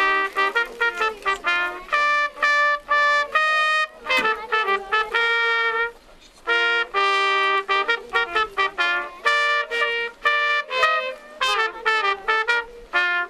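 A trumpet playing a lively melody of short, separate notes, with a few longer held notes and a brief pause about six seconds in.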